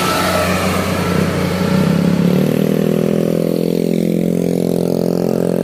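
Mitsubishi cargo truck's diesel engine passing close by with tyre and road noise, then settling into a steady engine drone whose pitch sinks slightly as the truck draws away.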